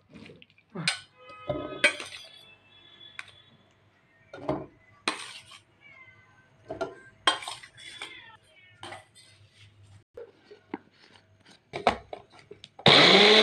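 Metal spoon and steel bowl clinking in a string of short knocks, with some ringing early on. Near the end a small personal blender switches on and runs loud and steady, grinding chunks of beetroot and tomato.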